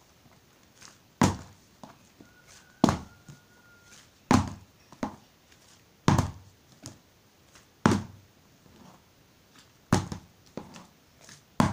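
A plastic bottle being flipped and landing over and over on a hardcover book: a dull thunk about every one and a half to two seconds, about seven in all, some followed by a smaller rebound knock.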